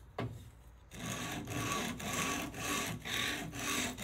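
Wooden handle being sanded by hand, rubbed back and forth on a strip of sandpaper stuck to a table saw's metal top: a short knock about a quarter second in, then steady scraping strokes about twice a second.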